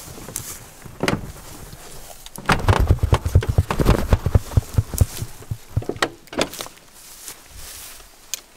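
Handling noises at a pickup truck: an irregular run of short knocks and clicks, thickest in the middle, as the door is worked and gear is taken out.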